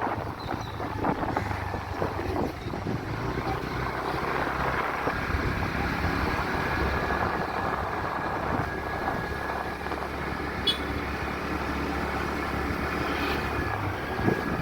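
Motorcycle engine running steadily during a ride, with a continuous rushing noise.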